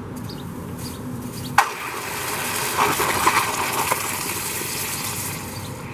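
A lump of freshly cast aluminum held with pliers in a tub of water: a sharp click about a second and a half in, then steady sizzling as the hot metal is quenched, lasting about four seconds before it fades.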